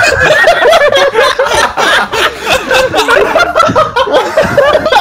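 Several people laughing together, loud and overlapping, without a break.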